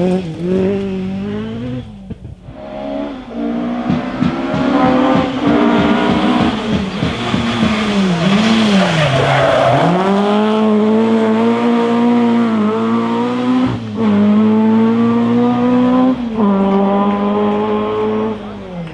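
Historic rally car engine under hard acceleration, its note climbing and dropping sharply several times through gear changes, with crackles on the overrun early on. About halfway the revs fall away and climb back as the driver lifts and gets back on the power, with a brief spell of tyre noise.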